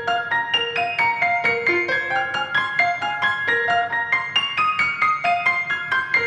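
Background instrumental music: a quick, steady melody of short keyboard notes, about four a second.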